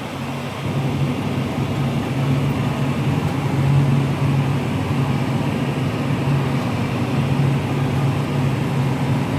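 Case IH Magnum 340 tractor's six-cylinder diesel engine running steadily under load while pulling a plough: a continuous low hum that gets a little louder about half a second in.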